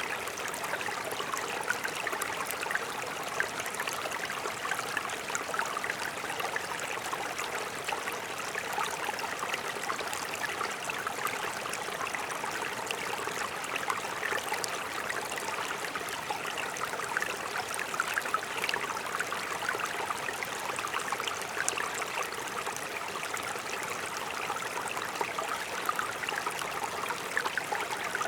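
Mountain stream flowing over rocks: a steady, even rush of water with fine splashing and gurgling throughout.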